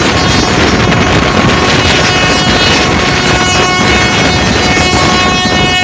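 Passenger train running, heard at an open coach window: wheels on the rails and rushing air make a steady roar. Over it sits a steady high-pitched whine of several tones held together through nearly the whole stretch.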